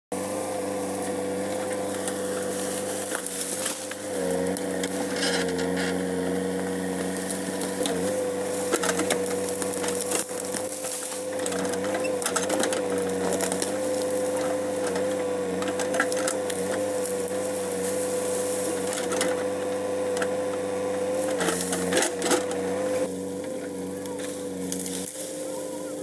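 JCB 3DX backhoe loader's diesel engine running steadily under working load, its note dipping briefly a few times, with repeated sharp cracks and snaps as the backhoe bucket tears at saplings and roots.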